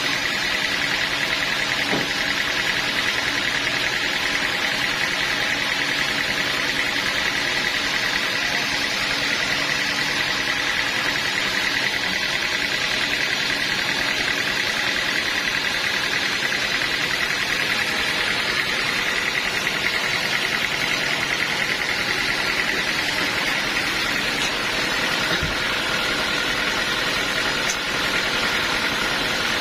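Sawmill machinery running steadily: a continuous engine drone with a steady high-pitched whine over it, unchanged throughout.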